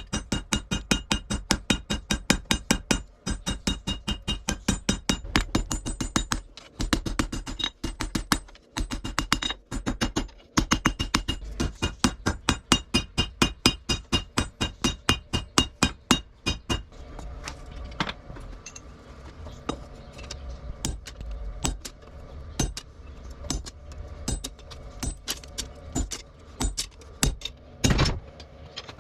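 Rapid, evenly paced hammer blows on steel at an anvil, about four or five a second with a metallic ring. About two-thirds of the way through the blows turn sparser, duller and quieter.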